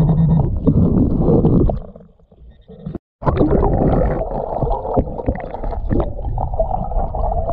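Muffled underwater rush and rumble of creek water, with scattered clicks and knocks of gravel and stones shifted by a gloved hand digging in the streambed. The noise falls away for about a second near the middle, then cuts back in.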